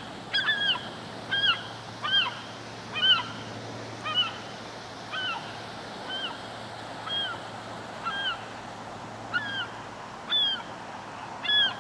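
A bird calling about once a second, each call a short, slightly arched note, with a quick run of calls just after the start, over a steady background hiss.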